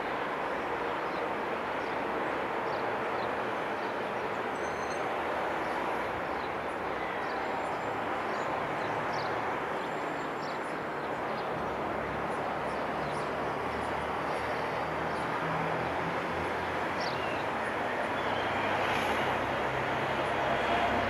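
Steady rushing outdoor background noise, with faint, short, high chirps of small birds scattered through it; it grows slightly louder near the end.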